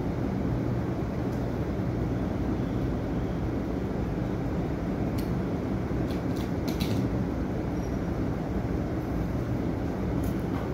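Steady mechanical hum and whoosh of room noise, like a running fan, with a few faint clicks around the middle.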